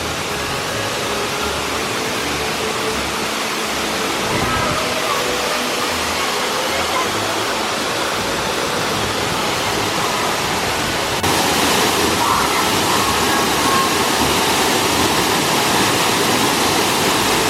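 Rushing water of a mountain stream and waterfall, a steady wash of noise that jumps abruptly louder about eleven seconds in.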